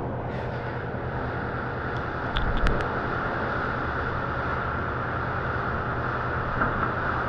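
Self-service car wash high-pressure spray wand running steadily, water hissing against the car, over a steady low pump hum. A few short clicks and a low thump come about two and a half seconds in.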